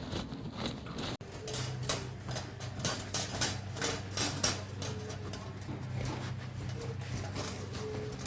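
Irregular light knocks and taps, some sharper than others, over a steady low hum.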